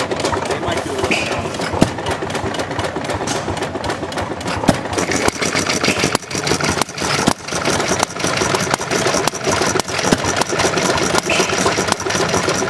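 Antique single-cylinder air-cooled stationary gas engine running cold and unevenly, its firing strokes coming in an irregular, stumbling train as it struggles to stay running.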